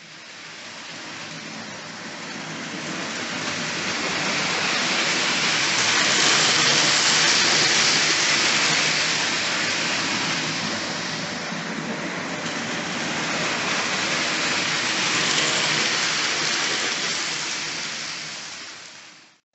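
Hornby OO gauge model train running along the track past the camera: a steady rushing rattle of wheels on rail. It swells to its loudest about six seconds in, eases a little, swells again, then fades away near the end.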